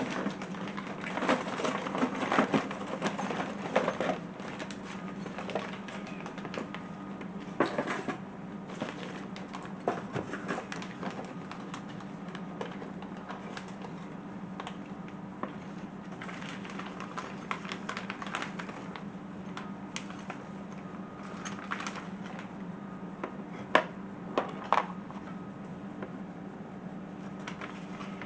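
Irregular small clicks, taps and clinks from handling small metal parts and hand tools, busiest in the first few seconds and with a few sharp ticks near the end, over a steady low hum.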